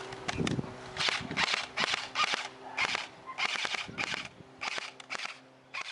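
Airsoft guns firing a rapid, irregular string of sharp shots and short bursts, more than a dozen in a few seconds.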